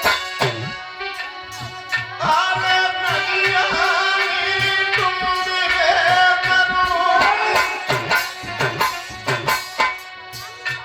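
Indian folk music of a dola song: a hand drum beats a steady rhythm under a sustained melody line, which comes in about two seconds in and fades near the end.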